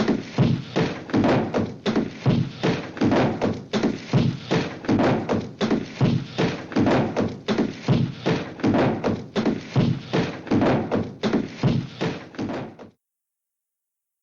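Cartoon sound-effect library recording of a long run of repeated thunks, about two to three a second and unevenly spaced, that stops abruptly a little before the end.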